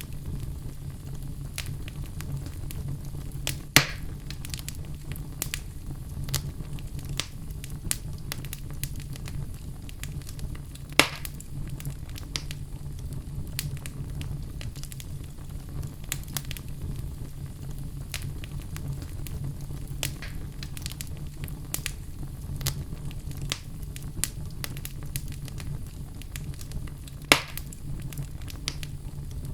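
Wood fire in a fireplace crackling, with frequent small snaps and three louder pops spread through, over a steady low rumble.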